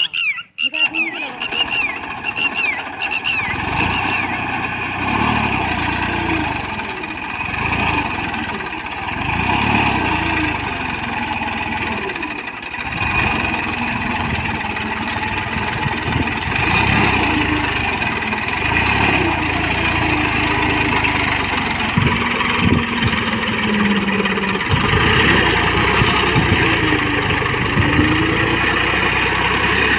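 Massey Ferguson 241 tractor's three-cylinder diesel engine running under load, its note rising and falling, as the rear rotavator churns through wet paddy mud. A run of quick falling chirps sounds in the first few seconds.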